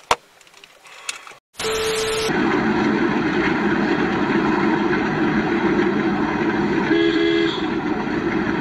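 Road and engine noise of a vehicle driving in city traffic, heard through a dashcam, with a short steady beep as it begins and a horn sounding briefly about seven seconds in.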